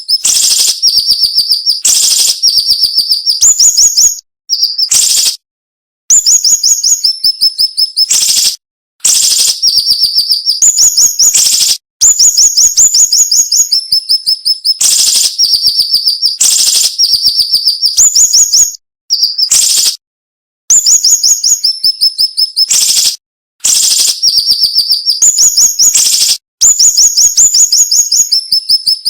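Siri-siri bird singing: rapid, sharp, high-pitched notes packed into dense phrases of one to three seconds, separated by short pauses.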